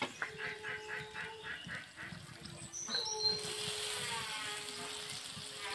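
Calls of farmyard birds, goose- or duck-like: a quick run of repeated calls over the first two seconds, then longer drawn-out calls from about three seconds in.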